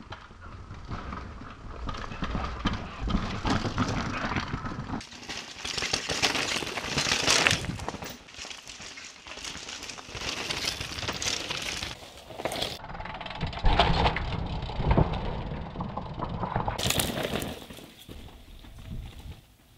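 Downhill mountain bikes riding over a rocky dirt trail: tyres crunching on stones and gravel, with irregular rattles and knocks as the bikes bounce. The sound changes abruptly several times as the shots cut.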